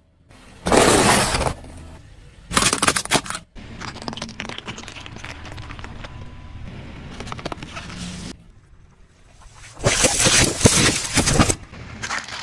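Car tyre rolling over and crushing plastic objects, with loud cracking and crunching. Two short bursts come in the first few seconds and a longer one near the end, with a quieter stretch between.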